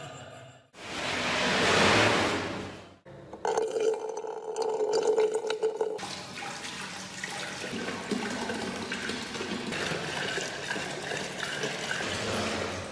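A short whoosh that swells and fades near the start, then streams of water pouring and splashing into a glass tank.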